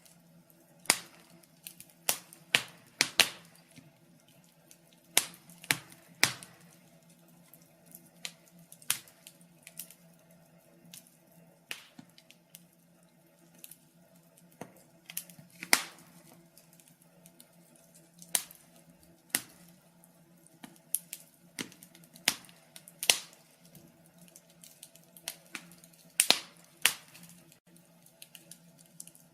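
Wood fire crackling: irregular sharp pops and snaps, sometimes in quick clusters, over a faint steady hum.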